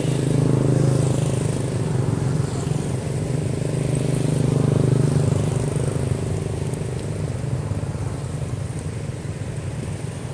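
Steady low hum of motor vehicle engines, swelling about a second in and again around four to five seconds, then easing off.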